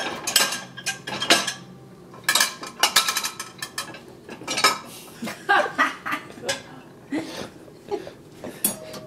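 Plates, pans and cutlery clattering as they are handled in an open dishwasher's racks: irregular clinks and knocks.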